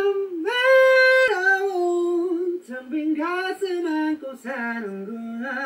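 A male pop singer singing a slow melody: one long held high note about half a second in, then lower held notes and a run of shorter phrases.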